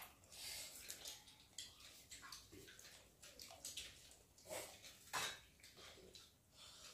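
Faint scattered clinks, taps and scrapes of stainless steel plates and tumblers as people eat rice by hand, with a louder clink about five seconds in.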